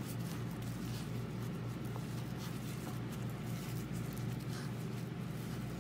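Dry breadcrumbs rustling and scratching in a bowl as a hand presses and turns a stuffed chicken roll in them to coat it, with faint scattered crackles over a steady low hum.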